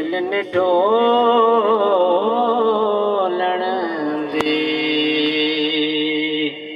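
A man singing a long drawn-out phrase of a devotional Punjabi kalam, the pitch wavering in ornaments, then settling on one steady held note that breaks off near the end. A single sharp click about four seconds in.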